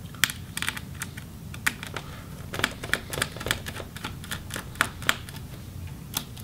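Small Phillips screwdriver turning out a laptop hinge screw: irregular light clicks and ticks, several a second, as the bit works in the screw head and the driver is handled against the metal hinge.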